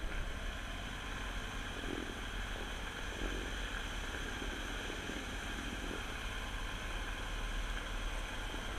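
Copperhead surface-drive mud motor running steadily, pushing a jon boat along at a constant throttle.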